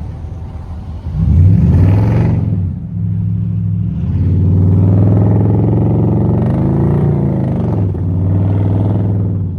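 Car engine revving hard. It climbs steeply about a second in and drops back, then is held at high revs with one more surge near the end before it falls away.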